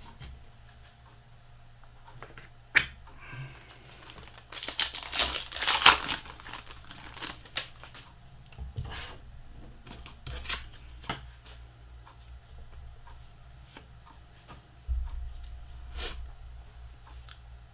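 A trading card pack's plastic wrapper being torn open, a loud ripping and crinkling that runs about two seconds starting around four and a half seconds in. Scattered clicks and light rustles of cards being handled follow.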